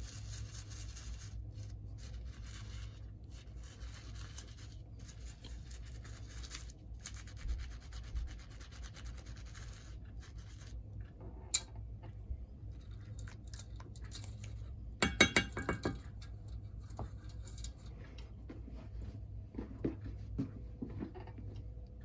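Small model-locomotive gears being scrubbed with a brush in the palm of a hand: a rapid, continuous rubbing scratch for about ten seconds, then scattered light clicks and knocks with a brief louder clatter in the second half.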